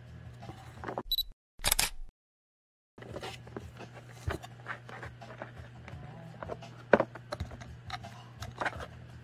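A kitten pawing and scratching inside cardboard and wooden boxes: scattered light taps and clicks over a low steady hum, the sharpest near the end. About a second in comes a short high chirp and a click like a camera shutter, followed by a second of dead silence.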